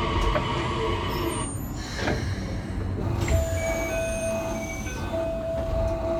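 Inside a Keikyu New 1000-series electric train car: a steady rumble of the running train, with a few steady electrical tones that start and stop.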